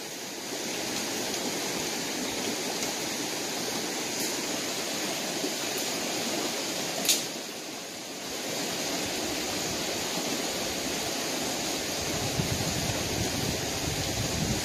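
Steady rushing of a shallow rocky stream, with one sharp click about seven seconds in and a few small crackles near the end as dry twigs are handled.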